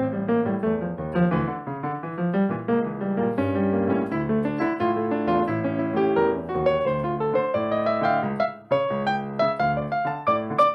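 Piano playing Brazilian music in quick, dense runs of notes, with a brief gap near the end followed by more separated struck notes.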